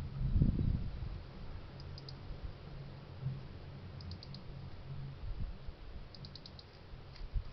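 Faint, quick high clicking in short runs of three to six ticks, coming every couple of seconds over a steady low hum, with a stronger low thump in the first second.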